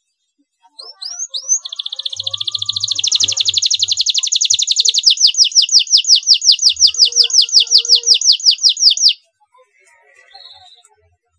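Domestic canary singing: a few short rising notes, then one long, fast trill of repeated sweeping notes lasting about seven seconds. The trill grows louder and a little slower before cutting off abruptly.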